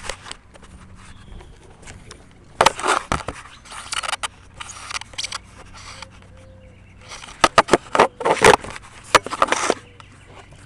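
Handling noise from the camera being moved about and set down: bursts of scraping and rubbing with sharp knocks, about two and a half seconds in and again in the second half, over a faint steady hum.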